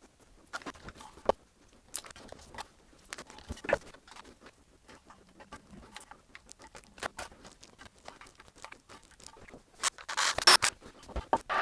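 Scattered light clicks and taps of small objects being handled, with a louder stretch of rustling near the end.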